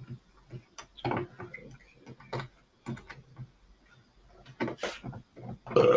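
Irregular plastic clicks and knocks from a threaded part being turned by hand into a corner of a plastic utility cart shelf.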